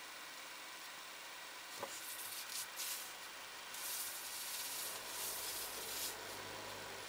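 Faint rubbing and hissing noises from a slowly moving car, heard through its dashcam: a click about two seconds in, then several scraping bursts, with a low hum coming in about five seconds in.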